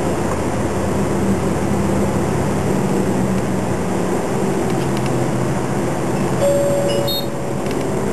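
City bus engine running and road noise heard from inside the bus as it drives steadily along, with a short steady tone about six and a half seconds in.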